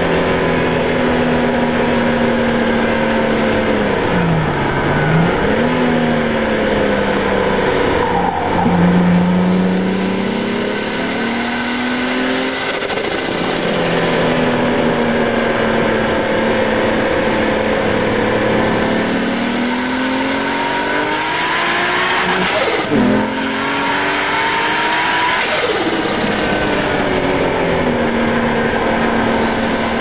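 Nissan R32 Skyline's turbocharged RB20DET straight-six running hard on track through a 3-inch turbo-back exhaust, revs climbing and dropping several times with gear changes. A high whine rises with the revs twice, and the sharpest drop in revs comes about two-thirds of the way through.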